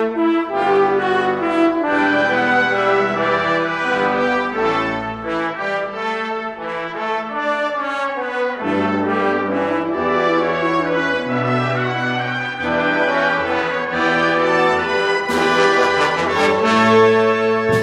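Brass ensemble of trumpets, French horns, trombones and tuba playing a concert piece, with sustained chords and moving lines. Two sharp percussion strikes near the end.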